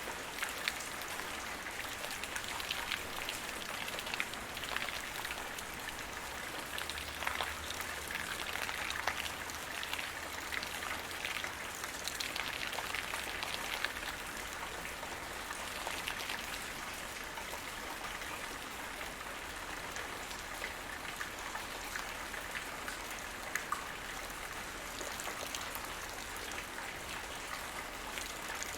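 Light rain falling on the ground: a steady patter of drops with scattered closer, sharper drop hits.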